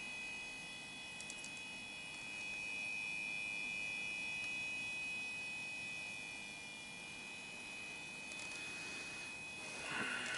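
Faint steady hiss with a thin, steady high whine. Near the end comes a short rustle and clatter as a disk-drive circuit board is handled and moved.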